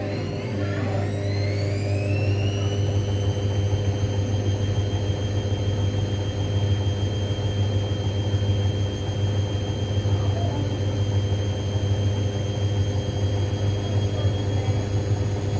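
Hoover washing machine spinning: the motor's high whine rises in pitch over the first couple of seconds, then holds steady at full spin speed over a steady low hum.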